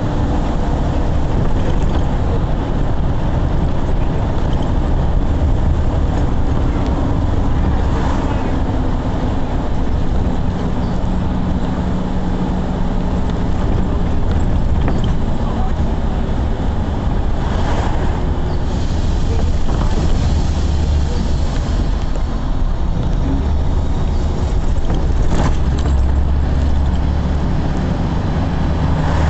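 A motor vehicle running steadily, a continuous low rumble with a faint hum that drifts in pitch now and then.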